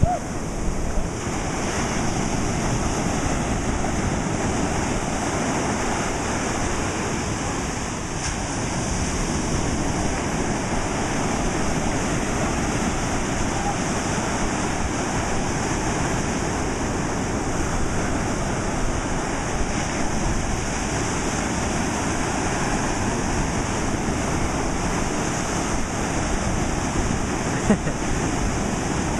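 Ocean surf breaking and washing through the shallows, a steady, unbroken rush of water.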